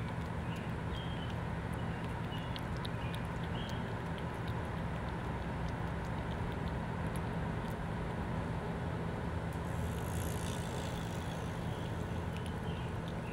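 Steady low rumble of road traffic, with faint irregular wet clicks of a cat lapping milk from a saucer, and a brief hiss about ten seconds in.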